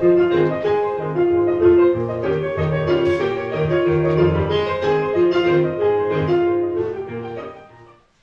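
Instrumental music with a piano or keyboard melody, fading out near the end.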